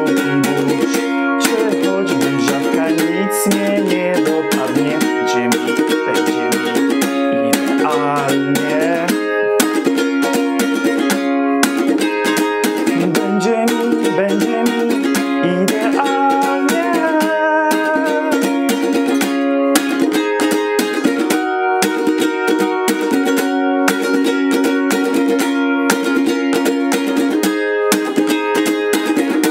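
Ukulele with a capo on the first fret, strummed in a steady, even chord rhythm.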